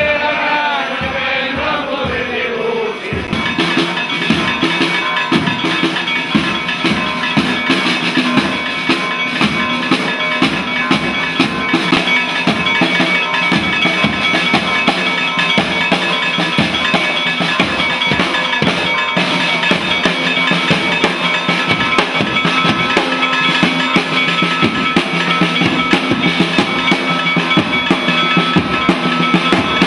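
Men's voices singing a slow chant, which gives way about three seconds in to a marching street band: snare and bass drums beating a steady march rhythm under held notes of the band's melody instruments.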